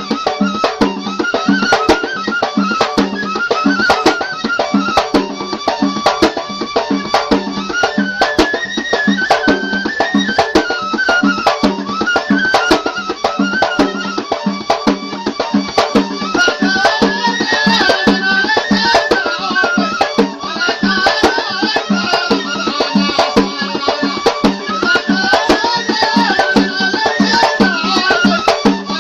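Yemeni folk music: a reed pipe (qasaba) playing a wavering, repeating melody over a steady, fast drumbeat.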